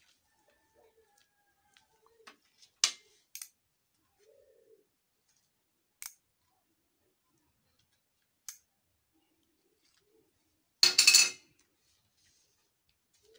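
Sharp, scattered clicks and taps of a thin rod against a ceramic plate and glass tabletop, a second or more apart. About eleven seconds in, a louder clatter of about half a second as a small ring-shaped washer lands on the plate.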